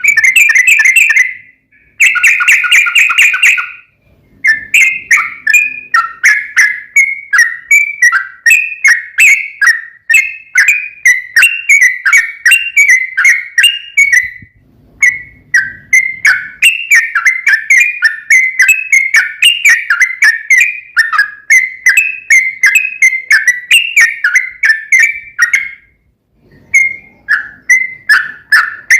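Yellow-vented bulbul (trucukan) singing a long run of rapid, bubbly chattering notes, broken by a few short pauses.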